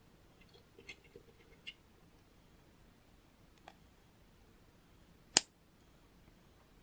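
Small LEGO pieces clicking lightly as they are picked from a pile on a tabletop, then one sharp, loud snap about five seconds in as two grey LEGO plates are pressed together.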